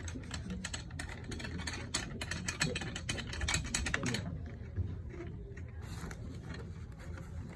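Snare drum tension rods being spun in by hand into their metal lugs, a rapid metallic clicking and rattling of the threads that thins out about four seconds in.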